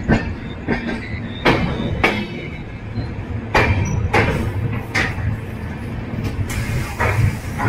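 Express train coach rolling into a station platform: a steady low rumble from the running gear, with a sharp clack from the wheels passing over rail joints and points every second or so. A brief hiss comes near the end.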